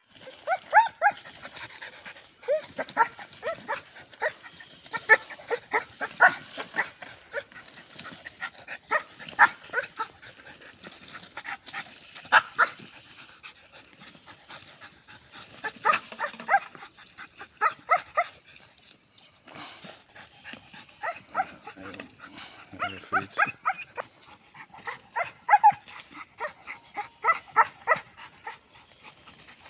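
German Shepherd puppies barking in repeated bursts of short, high-pitched yaps, with a brief lull about two-thirds of the way through.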